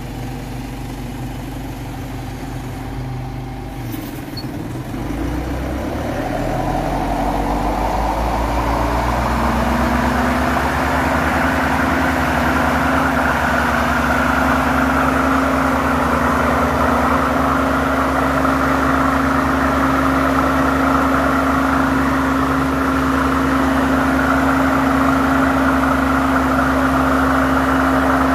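The four-cylinder diesel engine of a 1998 John Deere 6410 tractor, running at a low speed and then, about four seconds in, speeding up over several seconds. It then holds at a steady higher speed.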